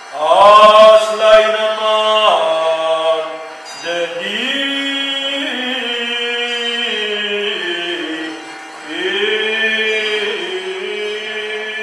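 Orthodox liturgical chant sung by men, in long held notes that step from pitch to pitch. It comes in three phrases, the first loud and high, the later ones lower and softer.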